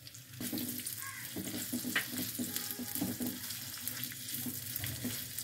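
Chopped onion sizzling in hot oil in a non-stick kadai, the hiss starting about half a second in as the onion lands. The silicone spatula makes occasional scraping taps as it stirs.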